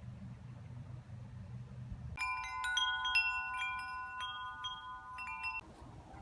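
A low steady hum, then about two seconds in, metal wind chimes ringing: many overlapping struck notes with long ringing tones. The chimes cut off suddenly after about three and a half seconds.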